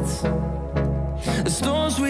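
A pop song playing as background music, with sustained chords and held notes.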